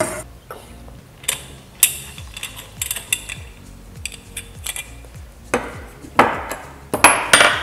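Clicks and light clinks of a plastic nylon-line trimmer head being unscrewed by hand from a brush cutter's gearbox shaft, with a few louder clattering handling sounds in the last two seconds.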